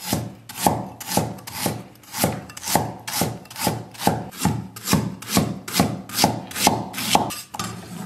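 Chinese cleaver slicing ginger thinly on a round wooden chopping block: a steady rhythm of blade strokes, each ending in a knock on the wood, a little over two a second.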